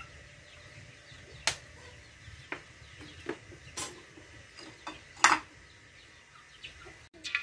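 Light clicks and knocks from a plastic oil bottle and an egg being handled at a wok, about half a dozen scattered taps, the loudest about five seconds in.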